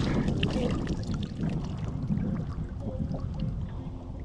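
Water lapping and trickling at a boat's side, with scattered small splashes and low wind rumble on the microphone.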